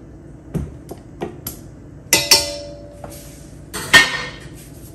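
Metal clinks and clatters as the wire whisk is taken off a KitchenAid stand mixer over its stainless steel bowl. A few light knocks come first, then two loud clatters about two and four seconds in; the first leaves a brief ringing tone.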